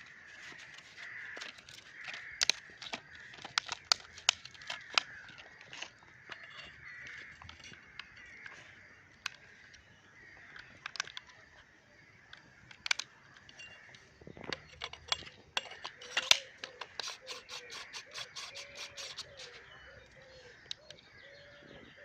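Airsoft M9A3 pistol fitted with a tracer unit firing: single sharp shots at irregular intervals, then a quick string of shots about two-thirds of the way in. A steady high chirring runs underneath.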